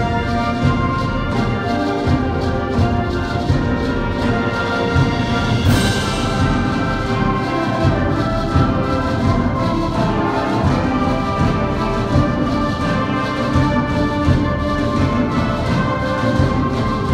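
High school concert band playing, woodwinds and brass together with timpani, with a sudden bright crash about six seconds in.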